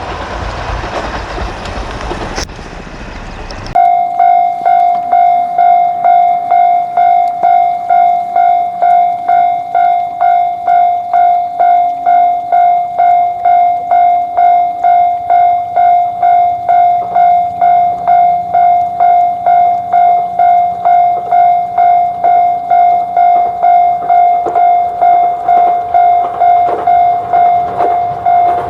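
A Japanese level crossing's electronic warning bell ringing in an even 'kan-kan' rhythm of about two strikes a second. During the first four seconds a passing train's rumble fills the sound, then it breaks off abruptly and the bell takes over.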